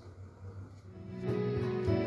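After about a second of low room sound, an instrumental intro starts on acoustic guitars and an electronic keyboard, with chords held steady and growing louder.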